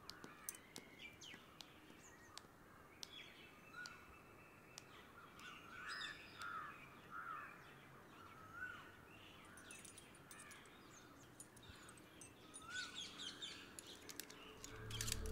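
Faint birds calling, crows cawing among them, with a few soft clicks. A low rumble swells near the end.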